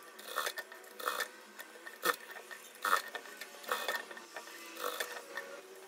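Industrial single-needle sewing machine stitching layers of gathered fabric in short runs, starting and stopping about once a second.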